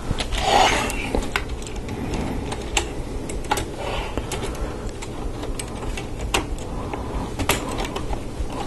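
LEGO Technic plastic parts clicking and snapping as pins, connectors and a beam are pressed together by hand: about a dozen sharp clicks at irregular intervals.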